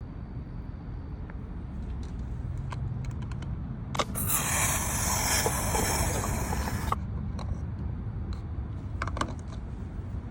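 A car's fuel filler cap being opened: a few small clicks, then, about four seconds in, a loud hiss of air through the filler neck as the fuel tank's pressure equalises, lasting about three seconds and cutting off suddenly, followed by more small clicks.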